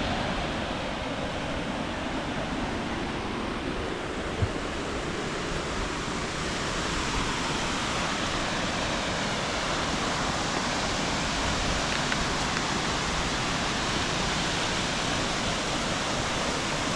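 Waterfall running full after heavy rain: a steady rush of falling water, a little louder after about six seconds.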